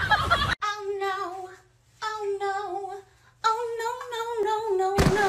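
A single voice holding three long, slightly wavering sung notes, each about a second long, with short breaks between, after a moment of noisy chatter at the very start.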